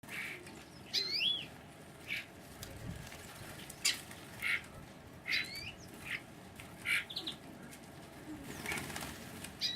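Small garden birds calling at a feeder: short chirps every second or so, with a recurring swooping call heard three times.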